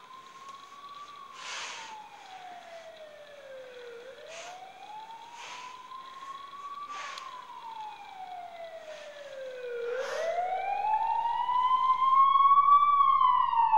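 Police siren wailing in slow rises and falls, each glide about three seconds long, growing much louder over the last few seconds as it draws near.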